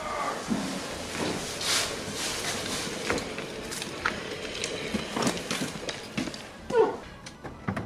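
Boots scuffing and stepping on brick paving while an Aixam microcar is pushed out by hand, its tyres rolling over the bricks and dry leaves, with irregular knocks and scrapes.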